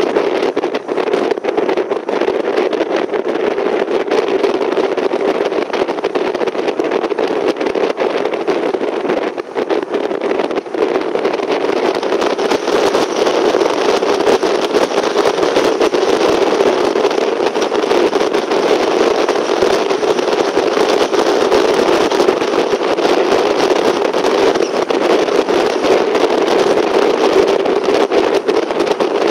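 Steady engine and tyre noise from a car being driven, a continuous rush with no pitched tones. The higher hiss gets louder about twelve seconds in.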